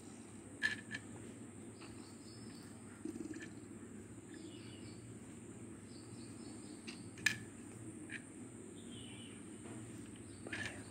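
A plastic protractor being shifted and pressed onto paper: a few faint clicks and taps, the sharpest about seven seconds in, over steady low background noise.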